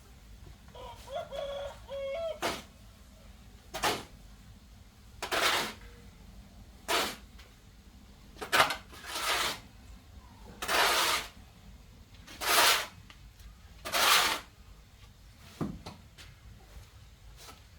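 A rooster crows once about a second in. Then come about ten rough scraping or swishing strokes, roughly one every second and a half, from hand work nearby.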